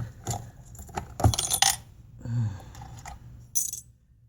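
Small metal parts clinking and clattering on a workbench during amplifier disassembly: a few irregular sharp clinks in the first two seconds and one more near the end.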